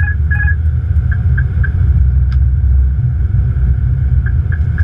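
Steady low rumble of airflow and engines in the cockpit of an Airbus A330-200 on final approach with its landing gear down. Two short electronic beeps sound right at the start, and a few faint brief pips follow.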